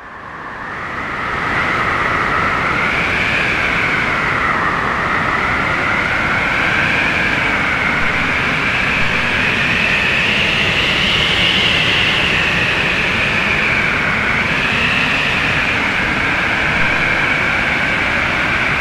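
Strong storm wind roaring steadily, with a wavering, howling whistle that slowly rises and falls in pitch; it swells up over the first second or two.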